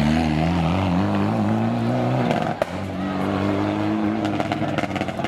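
Rally car engine accelerating out of a hairpin. The note wavers for about two seconds and breaks off sharply about halfway through. It then climbs steadily as the car pulls away and fades near the end.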